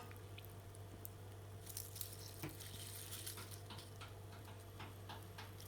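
Faint kitchen handling sounds of noodles being lifted out of cold water: light water noise and scattered small clicks of utensils and bowl, over a steady electrical hum.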